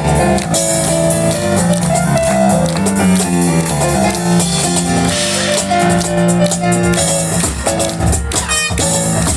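Live instrumental music from a piano and cajon duo: a run of piano notes over steady cajon hits.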